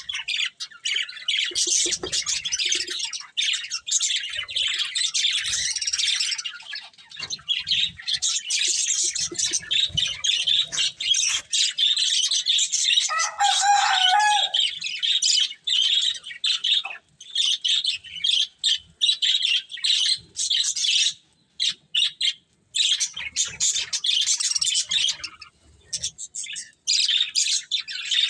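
Budgerigars chirping and warbling in fast, continuous chatter, breaking off briefly twice in the second half. A single lower, longer call stands out about halfway through.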